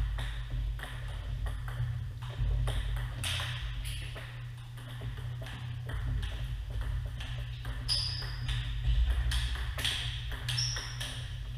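Table tennis rally: the ball clicks off the paddles and the table in quick, irregular succession, over a steady low hum.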